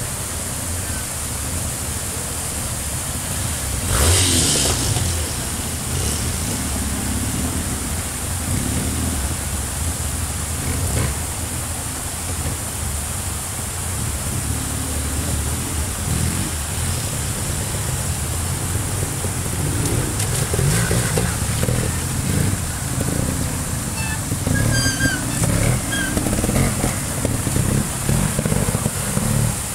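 Trials motorcycle engine running at low revs and blipping in short bursts as the bike picks over rocks, its firing getting louder and more rapid near the end, over the steady rush of a stream. There is a brief loud burst about four seconds in.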